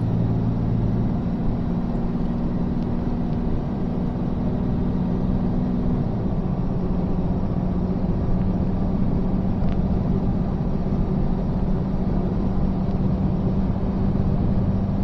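Mack five-ton truck's diesel engine running steadily at highway cruise, around 2,000 rpm, with tyre and road noise, heard from inside the cab. The engine hum shifts slightly in pitch about a second in and again around six seconds in.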